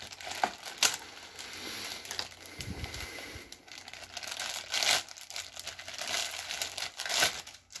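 Clear plastic toy packaging crinkling irregularly as a mermaid doll is handled and pulled about inside its wrapper, with a few louder crackles about a second in, around the middle and near the end.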